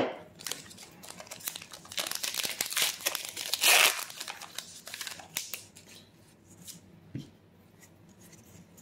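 Foil Pokémon booster pack wrapper being torn open and crinkled, with the loudest tearing about four seconds in, then fading to quieter rustling.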